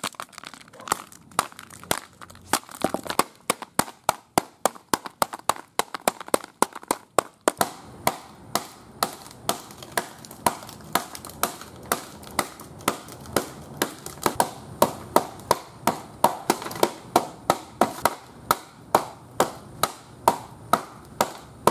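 Hammer blows on an iPad's aluminium back lying on asphalt: a long, even run of sharp metallic knocks, roughly two or three a second, punching a hole through the case.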